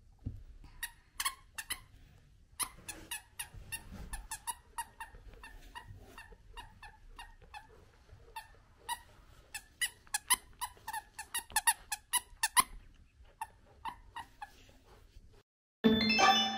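A squeaker in a plush dog toy squeaks over and over as a puppy chews it: dozens of short, high squeaks in irregular runs that stop about a second before the end. Music starts loudly in the last second.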